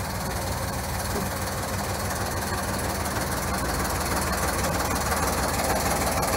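Ruston & Hornsby 4wDM narrow-gauge diesel locomotive's engine running with a steady low note, growing slightly louder.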